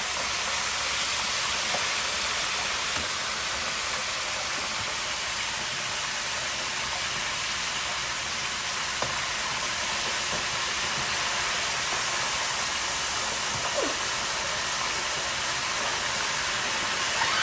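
Hot oil sizzling steadily in a deep fryer around a whole chicken as it fries, with a few faint clicks.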